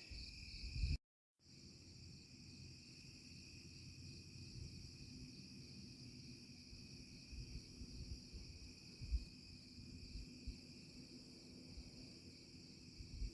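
A faint, steady chorus of crickets trilling, with a low murmur of wind or handling beneath it. The sound cuts out completely for about half a second about a second in.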